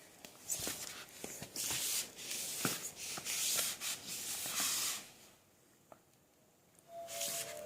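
Rubbing and scraping noises in irregular bursts with small clicks, stopping for about two seconds before a last burst near the end.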